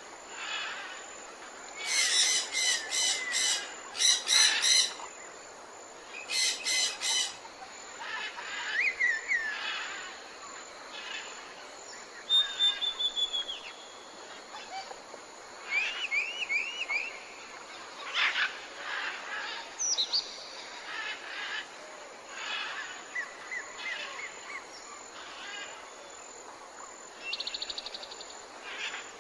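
Several birds calling and chirping, with short whistles and quick sweeps in pitch, and a few loud, harsh calls repeated in quick runs near the start, over a steady faint hiss.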